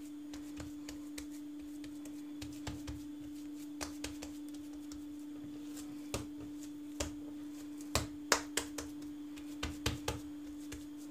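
Hands slapping and kneading a ball of minced meat and tail fat on a countertop, scattered soft slaps that grow louder and closer together from about eight seconds in; the slapping firms and shapes the Adana kebab mixture. A steady low hum runs underneath.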